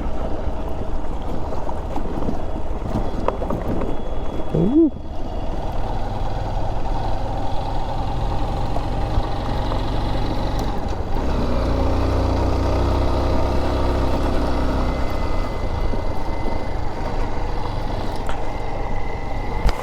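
Honda XR dirt bike's single-cylinder four-stroke engine running on a rough dirt road, with a low rumble and wind on the microphone. The engine note shifts about twelve seconds in.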